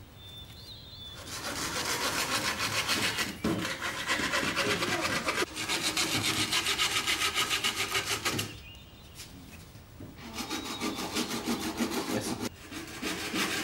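Hand saw cutting through a green bamboo culm in rapid back-and-forth rasping strokes. The sawing starts about a second in, stops for a moment after about eight seconds, then resumes twice.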